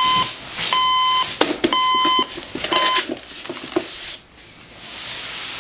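Electronic alarm beeping, about one half-second beep a second on one steady high tone, which stops about three seconds in. Scattered knocks and rustling follow.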